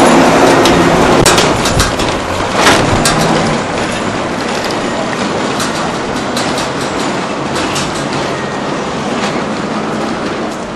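A pickup truck's engine passing close by, loudest at the start and fading over the first few seconds, giving way to steady street noise with scattered sharp clicks.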